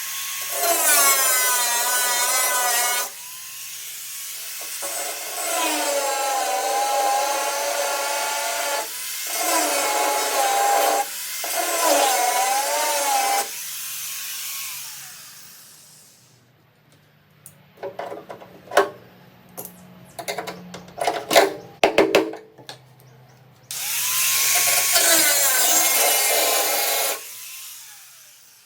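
Electric power tool cutting metal bars of a battery chassis, its pitch sagging and rising as it bites, spinning up and winding down at each run. In the middle comes a stretch of sharp knocks and clatter, with a second run of cutting near the end.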